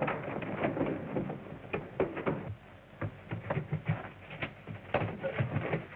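Irregular knocks and thumps, several a second, with a few heavier low thuds in the middle, on a muffled old film soundtrack.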